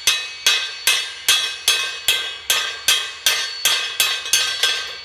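Chipping hammer striking a freshly laid stick weld bead to knock off the slag: about two and a half sharp, ringing metal strikes a second, stopping near the end.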